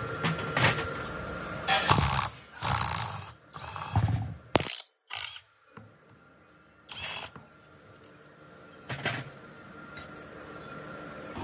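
A two-jaw puller drawing a bearing off the shaft of an electric motor rotor: sharp metal clicks and short bursts of a tool turning the puller's screw, with a quiet gap in the middle.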